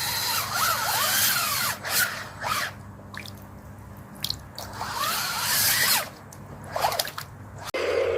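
Whine of a small electric motor in a remote-control construction toy, rising and falling in pitch in short spurts, in two main spells with quieter pauses between.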